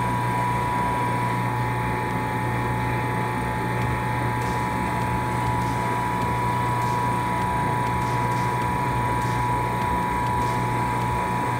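Steady machine hum with a constant low drone and a thin whine, unchanging throughout. Over it come faint, scattered rustles from hands mixing buckwheat flour in a kneading bowl.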